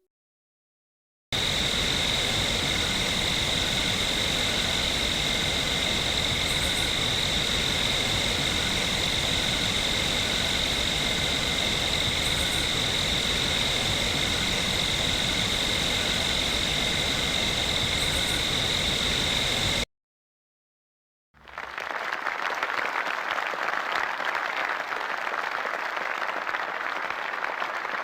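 A steady, even hiss with a constant high whine runs for about eighteen seconds and stops abruptly. After a short silence, applause starts and continues.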